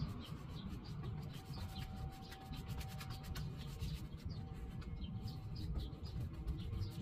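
Stain being rubbed by hand onto a wooden door, a run of quick scratchy strokes starting about a second in and lasting a few seconds.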